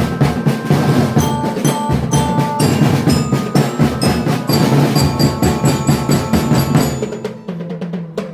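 Indonesian school marching drum band playing live: bass drums and snares keep a busy beat under ringing bell-lyra notes carrying the melody. Near the end the drums drop out, leaving a held low note.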